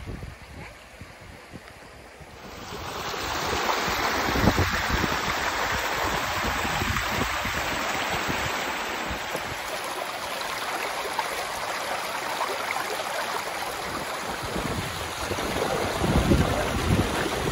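Waterfall's steady rush of falling water, growing louder about two and a half seconds in and then holding steady. Wind buffets the microphone near the end.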